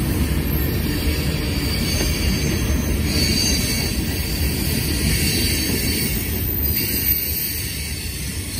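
A freight train of tank cars and covered hoppers rolls past, its wheels giving a steady rumble on the rails. Faint high-pitched wheel squeals come and go over the rumble.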